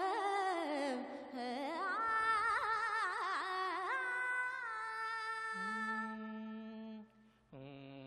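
A woman singing a Sanskrit verse in Carnatic-style melodic recitation. Her voice moves through quick ornamented turns, then holds one long note that fades about seven seconds in.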